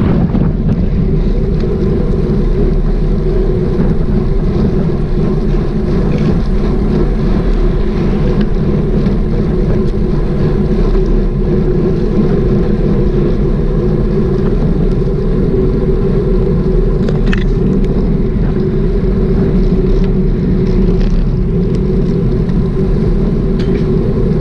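Steady wind rush buffeting the microphone of a bicycle-mounted action camera, with low tyre and road rumble underneath, unbroken while the bike rolls along at a steady pace.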